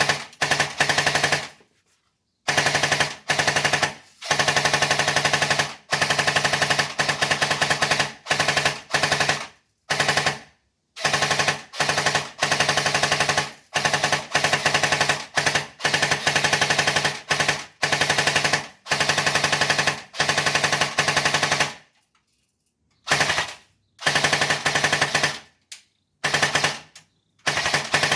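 Airsoft MG42 firing full-auto in many bursts of about half a second to two seconds each, each burst a fast rattle of shots over a steady whine, with a pause of about a second near the end.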